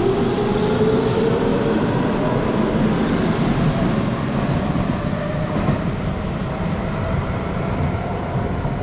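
Hanshin 5500 series electric commuter train pulling away from the platform: wheels rumbling on the rails, with a traction motor whine gliding down in pitch in the first second. The running noise fades slowly as the train draws away.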